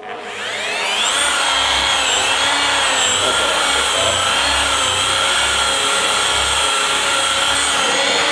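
Electric rotary polisher starting up, its motor whine rising to full speed in about a second, then running steadily with the pad working a fibreglass gel coat surface.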